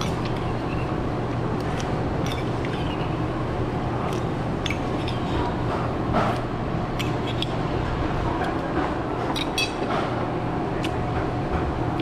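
Eatery ambience at a meal: a steady low hum with scattered light clinks of spoons and chopsticks against bowls.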